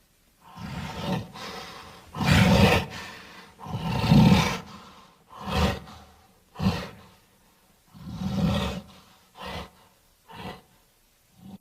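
Cavewoman vocal sound effects: a voice giving a series of gorilla-like roars and grunts, about nine separate calls, the longer, louder ones in the first half and shorter ones toward the end.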